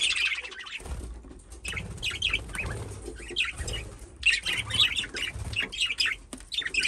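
Pet budgerigars chattering: many quick, overlapping chirps and warbles with short lulls, busiest in the second half.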